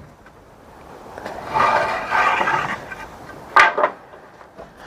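Heavy wooden lumber slabs being handled: a rough scrape of wood sliding against wood for about a second and a half, then one sharp knock of wood on wood.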